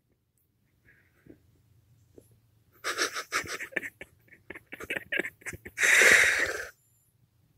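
Pit bull's breathy huffs and snuffles: quiet at first, then a string of short huffs from about three seconds in, and one longer, louder breath about six seconds in.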